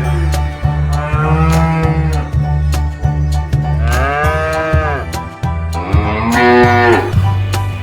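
Cows mooing: three long moos that rise and fall in pitch, the first near the start, the next about four seconds in and the last about six seconds in, over background music with a steady beat.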